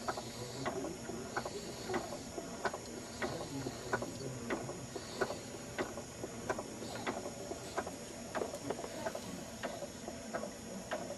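Electric baby swing ticking steadily as it swings, about three clicks every two seconds, under a sleeping baby's soft snoring breaths.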